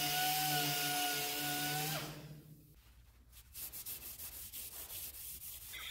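Small air-powered orbital DA sander running against the car's sheet-metal rocker panel with a steady whine, shutting off about two seconds in. After a short pause, faint repeated scuffing strokes of a hand-held red Scotch-Brite pad rubbing the bare metal to prep it for primer.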